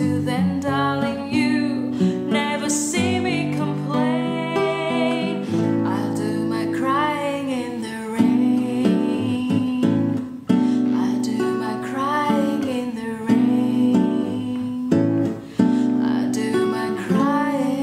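A woman sings a slow song with vibrato over a fingerpicked acoustic guitar.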